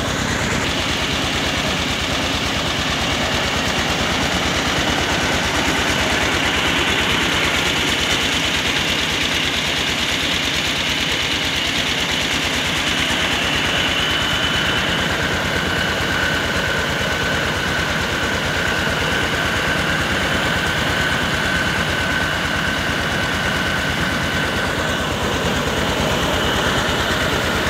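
Mobile rice mill running: the engine and the rice huller it drives make a loud, steady mechanical din with a rapid low beat. A high whine joins in a few seconds in.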